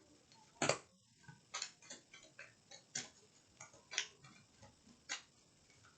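Tarot cards being handled and shuffled, giving a string of sharp, irregular clicks, about one or two a second, the loudest near the start.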